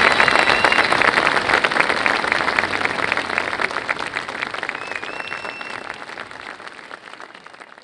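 Crowd applauding and clapping, with a couple of short whistles, fading out steadily toward the end.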